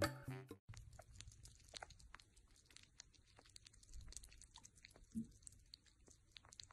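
Sugar gliders licking and lapping food from a small plastic cup: faint, quick, irregular wet clicks and smacks.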